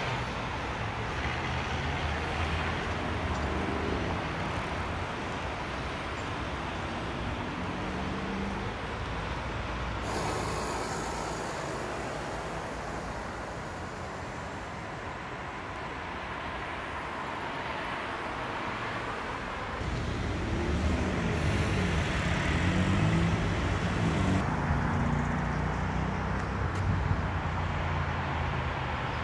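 Steady road traffic on a busy multi-lane city road: cars and vans passing with engine hum and tyre noise. It gets louder from about twenty seconds in, as engines pass close with their pitch rising and falling.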